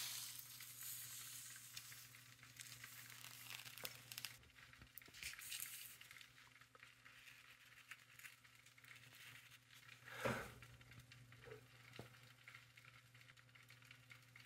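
Faint hissing and crackling of liquid nitrogen boiling off around a cooled YBCO superconductor, over a low steady hum, with a soft thump about ten seconds in.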